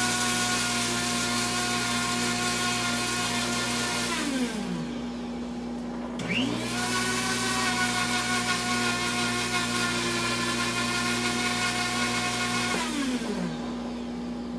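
Small electric blade spice grinder running in two pulses: the motor whines for about four seconds and winds down, then after a short pause spins up again for about six seconds and winds down. It is run in bursts with rests rather than continuously, to spare the motor.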